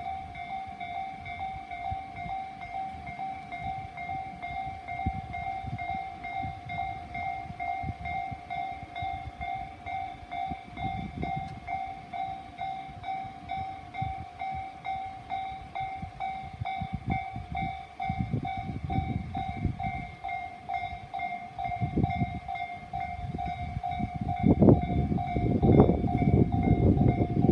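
Japanese railway level-crossing warning bell ringing in a steady, repeating electronic tone while a Tobu Nikko Line train approaches and passes; the train's rumble and the clacking of its wheels over rail joints grow louder from about two-thirds of the way in.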